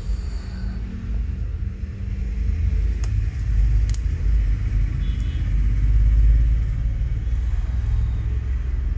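Steady low rumble, swelling about six seconds in, with a couple of faint clicks about three and four seconds in.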